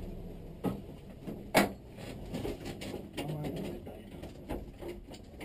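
Scattered clicks and knocks inside a BMW E30's cabin with the engine no longer running. The loudest is a sharp click about a second and a half in.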